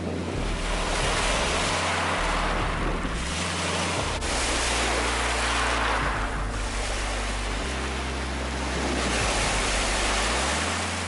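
Small Lake Superior waves washing up over a sand and pebble shore, the wash swelling and easing every few seconds over a low rumble.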